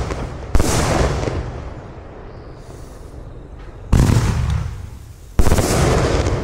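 Iskra Green Goblin firework compound (25 and 30 mm calibre shells) firing, with three loud bangs, about half a second, four and five and a half seconds in. Each bang fades out over a second or more.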